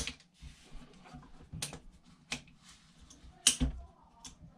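AR-15 rifle being taken down by hand: parts clicking and knocking, about four separate sharp clacks, the loudest about three and a half seconds in.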